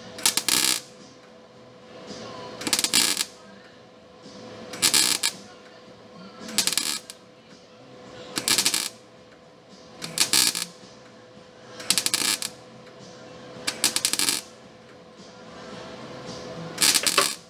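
MIG welder laying short tack welds on the steel cab corner patch panel. About nine half-second bursts of crackling arc come about every two seconds, over a steady hum.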